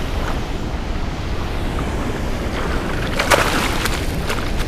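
Steady rush of water pouring below a spillway. About three seconds in there is a short, sudden splash as a hooked northern pike is pulled from the water onto the gravel bank.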